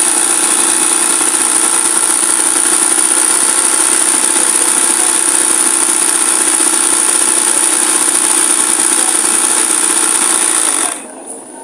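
Electric embroidery sewing machine running steadily at speed, stitching a pillowcase held in a hoop. It runs with a constant pitch and a high whine, then cuts off abruptly near the end.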